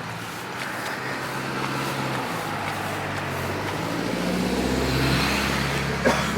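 Car engine and road noise heard from inside the car, the engine note rising about halfway through. A couple of sharp knocks near the end.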